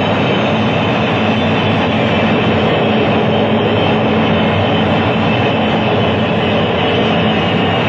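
Jet engine roar from the English Electric Lightning's twin Rolls-Royce Avon turbojets: a loud, steady roar with a low hum under it, unchanging throughout.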